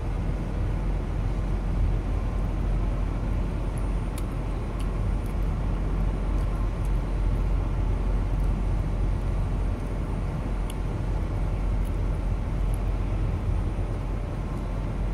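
Steady low rumble of vehicle engines, with a few faint high clicks.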